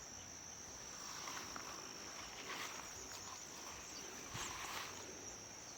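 Faint, steady high-pitched insect chirring, as of crickets, with a few soft faint sounds now and then.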